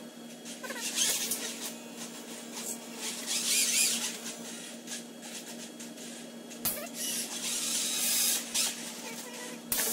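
A competition robot's electric motors whirring in several bursts as it drives and moves its arm, over a steady low hum.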